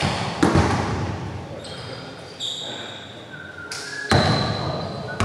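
Basketball bouncing on a hardwood gym floor, a few separate echoing bounces with the loudest about four seconds in, and high sneaker squeaks on the floor in between.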